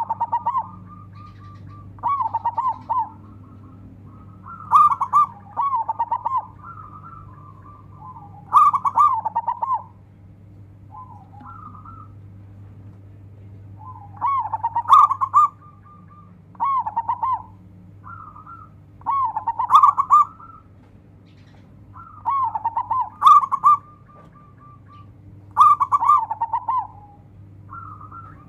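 Zebra dove (perkutut) singing: phrases of rapid, bubbling cooing notes repeated every two to three seconds, with short pauses between. A steady low hum runs underneath.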